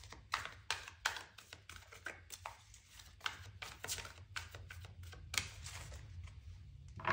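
Tarot cards being shuffled by hand: a string of faint, irregular card snaps and taps.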